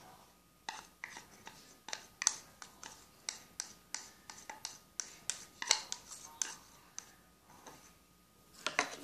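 Light, irregular clicks and scrapes of small plastic toy dishes, a few a second: a toy spoon and a small plastic pot being tapped and scraped to get a thick mixture out.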